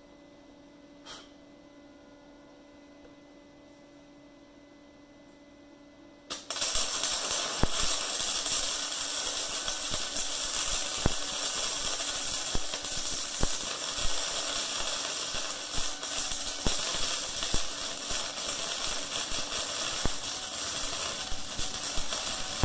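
Wire-feed (MIG) welder arc crackling steadily for about sixteen seconds, with scattered sharp pops, starting suddenly about six seconds in after a faint hum and stopping abruptly at the end. The weld is on a nylock nut at a seized rear oil passage plug of a small-block Chevy engine block, heating the plug to break it loose.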